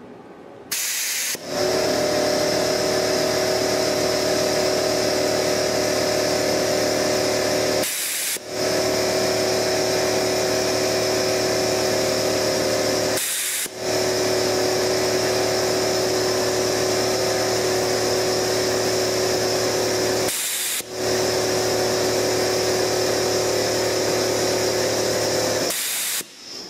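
Shop-air powered vacuum desoldering gun (OK International MX-DSI) sucking with a loud, steady hiss carrying a faint whine, in four long pulls of the trigger of five to seven seconds each with short breaks between. There is a brief burst of air about a second in and another near the end.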